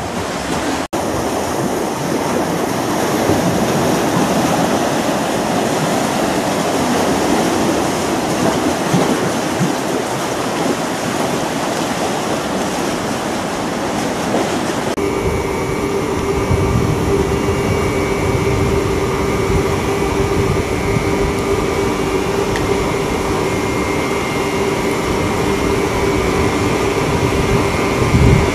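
Steady rush of the sea surf against a concrete tetrapod breakwater; about halfway through it cuts to a boat's engine running with a steady, unchanging hum.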